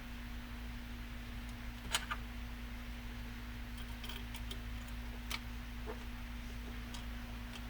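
Scattered light metallic clicks and clinks of small screws, nylon-insert lock nuts and a hand tool being handled during assembly. The sharpest click comes about two seconds in, and the others are spread through the rest of the time. A steady low hum runs underneath.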